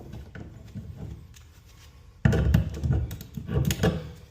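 Light taps and clicks, then from about two seconds in a louder run of knocks, bumps and rustling as tools and materials are handled.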